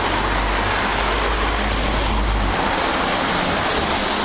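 Wind blowing across the microphone: a steady rushing hiss, with a low buffeting rumble that drops away about two and a half seconds in.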